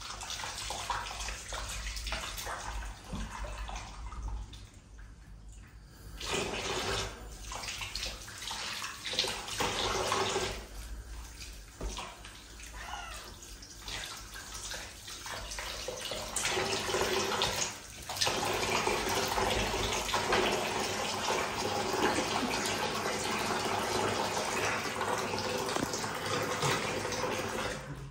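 Tap water running into a bathtub and splashing over a cat being rinsed. It comes and goes at first, then runs steadily through the second half and cuts off at the very end.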